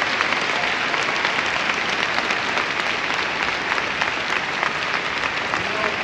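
A large crowd applauding steadily, many claps blending into a continuous wash.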